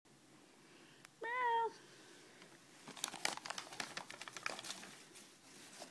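A domestic cat gives one short meow about a second in. From about three seconds on comes a run of crackling, crinkling rustles from a paper bag being handled.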